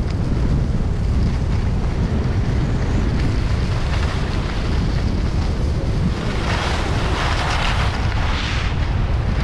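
Wind buffeting the microphone of a camera on a skier running downhill, a steady low rumble, under the hiss of skis on packed snow. The ski hiss grows louder and brighter for a couple of seconds past the middle, then drops back.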